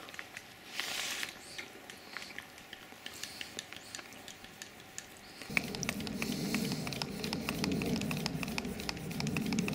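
Close-up chewing and small crunching clicks of someone eating bread. About five seconds in, a steady low rumble starts, with light clicks and scrapes of a tire lever working a mountain bike tire off its rim to fix a flat.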